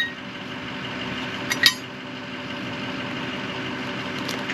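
An engine idling steadily, with a sharp metallic clink about one and a half seconds in.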